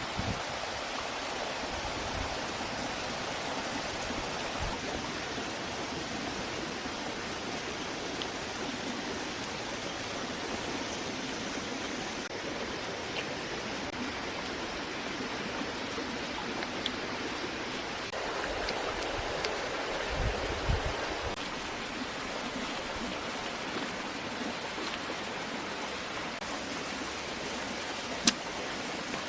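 Steady rushing noise like running water, with a few faint ticks and one sharp click near the end.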